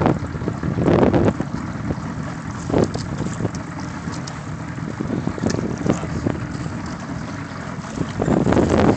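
Wind buffeting the microphone, a low rumble that swells in gusts in the first second and again near the end.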